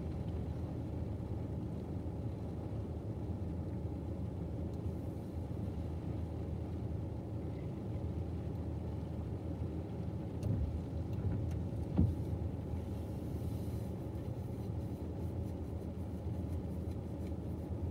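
Steady low rumble heard inside a car as a double-stack freight train rolls past, with a sharp knock about 12 seconds in and faint light ticks near the end.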